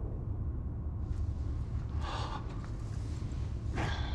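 A person gasping for breath twice, short breathy gasps about two seconds apart, over a steady low rumble inside a moving train car.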